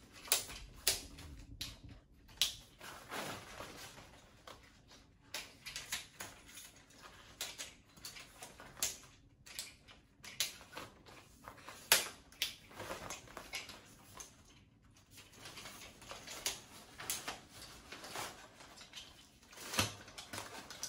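Lightweight PHOPIK tripod being collapsed by hand: irregular clicks and clunks as its leg clamps are released, the leg sections are pushed shut and the legs fold together, with one sharper knock about midway.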